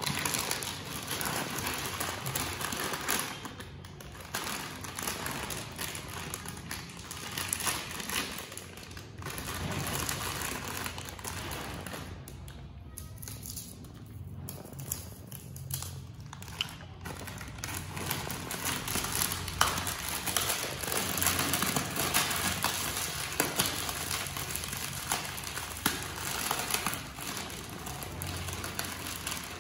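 Crinkling and crackling of crisp Kurkure and Lays snacks and their plastic packets being handled, over background music.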